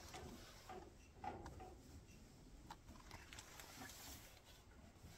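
Near silence, with faint rustling of a picture-book page being turned and a few faint clicks.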